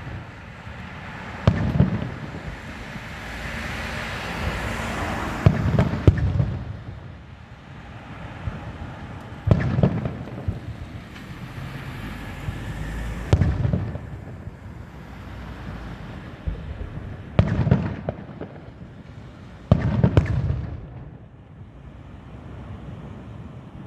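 Aerial firework shells bursting: a deep boom every few seconds, seven in all, two of them close together, each trailing off, with a steady crackling hiss between the bursts.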